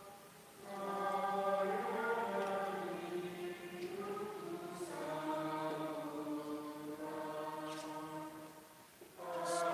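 Voices singing a slow offertory hymn in long held notes. The singing drops away briefly just after the start and again near the end, between phrases.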